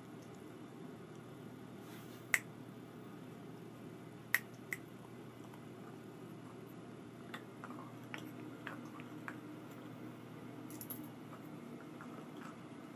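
Puppy gnawing on a chew toy: scattered sharp clicks of teeth on the chew, three louder ones in the first five seconds, then a run of quieter clicks, over a faint steady hum.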